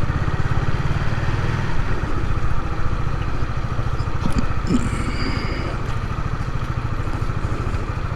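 A small vehicle's engine running steadily, its firing heard as a fast, even low pulse, with street traffic around it.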